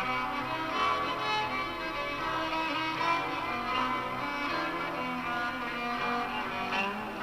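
Background music played on bowed strings, a violin melody over lower string parts.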